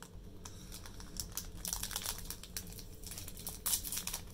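Foil trading-card booster-pack wrapper crinkling and crackling as it is handled, in quick irregular rustles that bunch up about two seconds in and again near the end.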